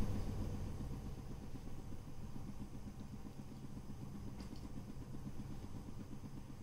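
A steady low machine hum, with a faint tick about four and a half seconds in.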